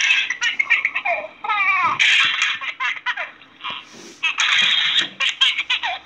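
A baby laughing hard in repeated bursts of belly laughs, with a wavering, warbling pitched sound between the bursts about a second in.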